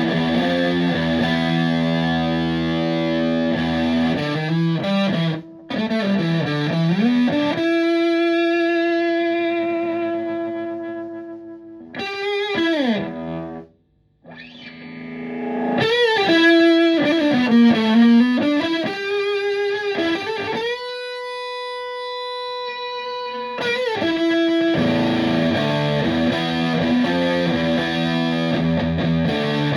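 Electric guitar through a Tone Bender MKII-style fuzz pedal and a valve amp into a 4x12 cabinet. Distorted chords give way to single-note bends and long held notes that slowly fade, with a brief gap about halfway, and then thick fuzz chords again near the end.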